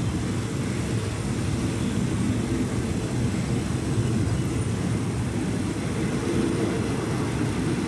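Steady low rumble of a passenger train in motion, heard from on board.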